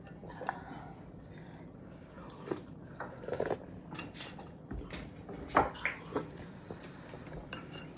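People eating: metal spoons and forks clinking and scraping against plates, with chewing in between. A sharper click stands out a little over halfway through.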